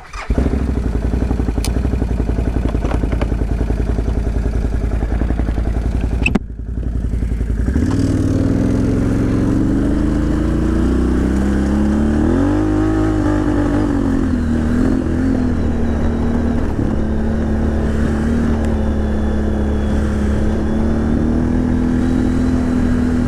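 Can-Am Outlander XMR 1000 ATV's V-twin engine running as it rides. About eight seconds in it accelerates with a rising pitch, then it settles into a steady cruise.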